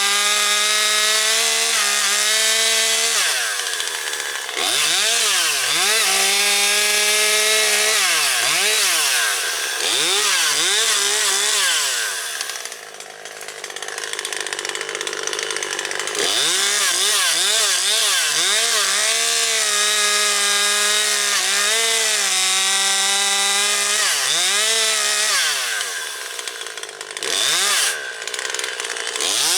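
Husqvarna 540XP Mark III two-stroke chainsaw cutting storm-downed branches, held at a steady high pitch through cuts and repeatedly dropping and revving back up between them. It eases off for a few seconds near the middle before revving back up.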